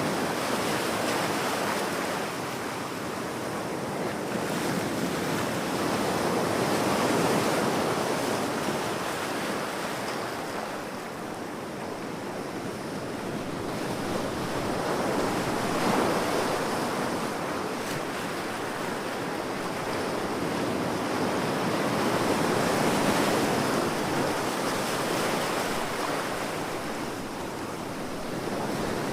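Ocean waves breaking on a beach, a steady wash of surf that swells and eases every several seconds.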